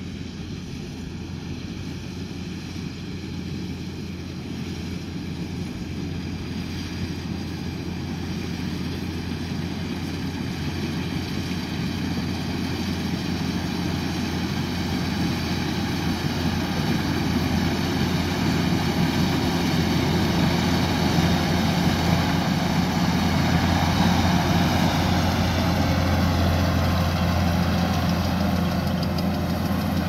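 Kubota combine harvester running steadily as it cuts rice, its engine hum growing louder as it comes closer, then holding loud and steady for the second half.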